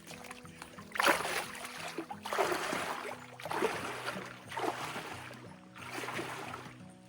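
A hiker's legs wading through shallow swamp water, about five splashing strides roughly a second apart, over background music with a low melody.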